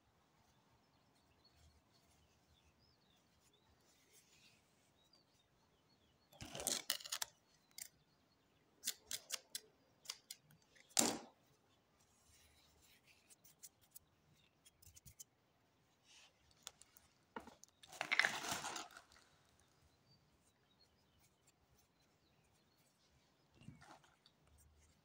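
Linen flax tow (plumbing hemp) pulled apart and torn from a bundle by hand: a few short, dry rustling and tearing bursts, with scattered light clicks in between.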